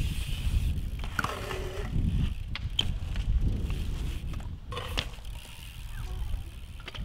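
BMX bike tyres rolling over concrete skatepark ramps: a steady low rumble, with a few sharp knocks and clacks from the bike, about one, three and five seconds in.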